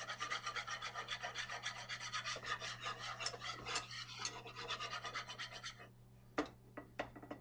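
A utensil scraping and clicking quickly against a stainless steel skillet as flour and oil are beaten into a paste, the first stage of a roux for gravy. The stirring stops about six seconds in, followed by a few single taps on the pan.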